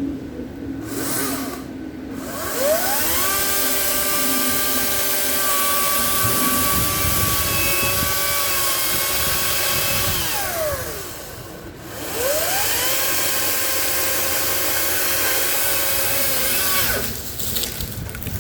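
Ryobi 40-volt HP brushless battery chainsaw cutting through a dead limb: the motor whines up to speed, runs steadily for about seven seconds and winds down, then spins up again for a second run of about five seconds before stopping.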